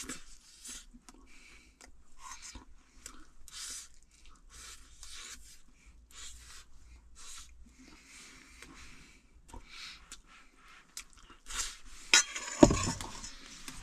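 A person eating from a bowl with a spoon: soft chewing with small spoon scrapes and clinks against the bowl, and one louder knock about twelve seconds in.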